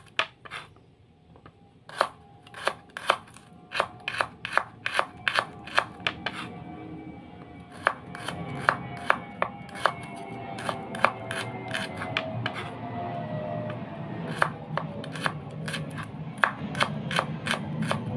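Kitchen knife slicing shallots thinly on a cutting board: a quick, steady run of sharp taps of the blade on the board, about three a second, after a short pause near the start. Background music comes in about a third of the way through.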